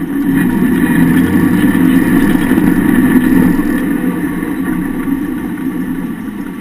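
Off-road vehicle's engine and drivetrain running, heard from under the chassis by the rear axle; it picks up about a second in and eases off over the last few seconds.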